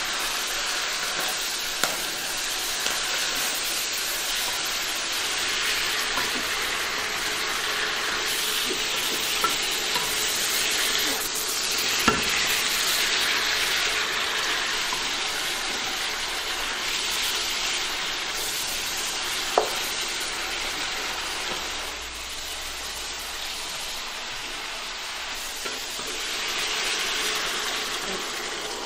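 Sliced bamboo shoots and preserved pork sizzling as they are stir-fried in a stainless steel wok, a wooden spatula tossing and scraping them, with a few sharp knocks of the spatula against the pan.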